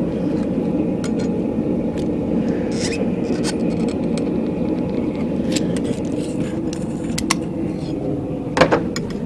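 A forge runs with a steady rumble, with a few light metallic clinks and a sharper double knock near the end.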